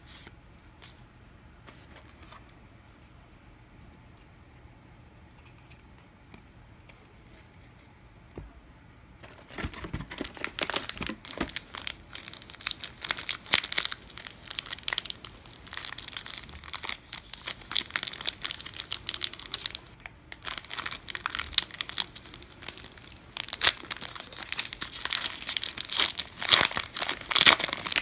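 Trading-card pack wrappers being torn open and crinkled by hand. It stays quiet with a few faint ticks for roughly the first third, then turns into loud, dense crackling and tearing, breaks off briefly about two-thirds of the way in, and starts again.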